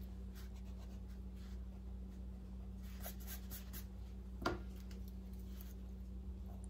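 Rubber eraser rubbing on sketch paper in faint scratchy strokes, then a single light knock about four and a half seconds in, over a faint steady hum.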